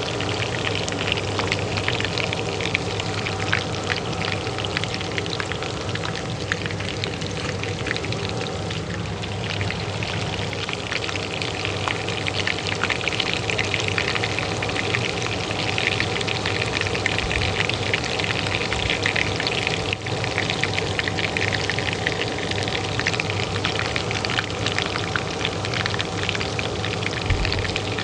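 Hot oil frying in a pan, a steady crackle of many small pops, over the steady hum of a kitchen range hood fan.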